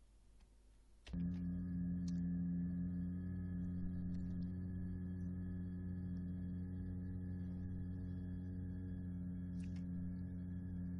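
A person holding one sustained vowel at a single steady pitch, starting about a second in: the phonation that sets the vocal folds vibrating during laryngeal stroboscopy.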